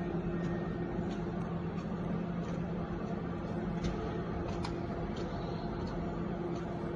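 Automatic wonton-wrapper machine running: a steady motor hum with a low drone, overlaid by faint, irregular light ticks from its moving parts.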